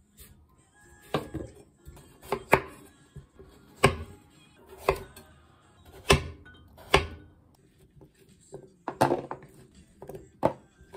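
Kitchen knife chopping kabocha squash on a wooden cutting board: a dozen or so sharp, irregularly spaced knocks as the blade goes through the firm squash and strikes the board.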